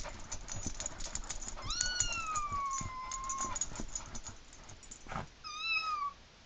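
Kitten-meow ringtone playing through a cell phone's speaker: one long meow falling in pitch, then a shorter one a couple of seconds later, over a scatter of small clicks and taps and a single knock just before the second meow.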